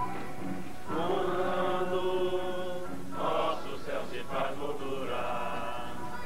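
Music with a group of voices singing in long held notes, starting about a second in and changing to a new phrase about three seconds in.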